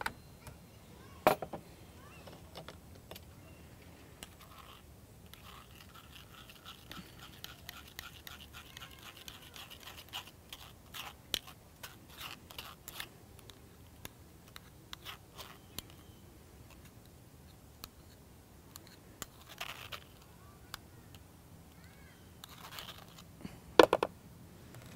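Metal spoon scraping and stirring juice pulp in a small metal mesh strainer set on a glass, with light scrapes and clinks. There is a run of quick scrapes in the middle. Sharp clinks come about a second in and again near the end.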